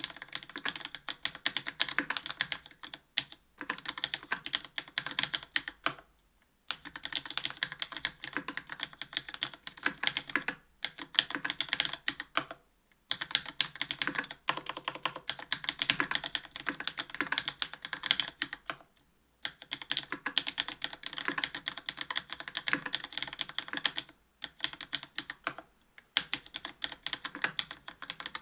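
Mechanical keyboard typing: Cherry MX Black linear switches in an aluminium plate under GMK keycaps, giving fast runs of key strikes broken by short pauses every few seconds.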